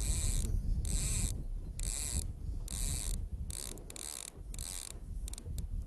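A fishing reel's ratchet clicker buzzing in repeated short spurts, about two a second, as a fish on its first run pulls line off the reel, thinning to a few single clicks near the end. A low rumble runs underneath.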